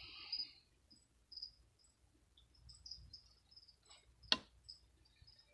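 Faint, high insect chirping, short chirps coming irregularly, with one sharp click a little over four seconds in.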